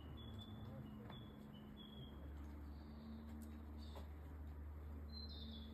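Faint wild bird chirps, short high notes repeated every second or so, over a steady low hum of background noise.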